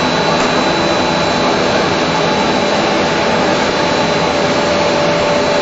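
Plastic film blowing machine and in-line gravure printing machine running: a steady rushing machine noise with a constant high whine and a lower hum.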